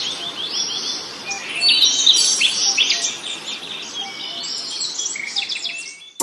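Several small birds chirping and singing at once, a dense run of quick, overlapping high chirps and trills that fades out near the end.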